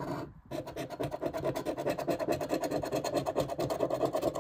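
A large metal coin scraping the scratch-off coating of a lottery ticket in rapid back-and-forth strokes, after a brief pause near the start.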